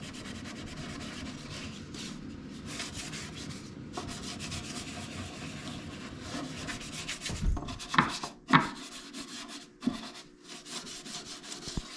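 Cloth rubbing back and forth over the wooden surface of a machinist's tool chest as stain solution is wiped on. Several light knocks come about two-thirds of the way in.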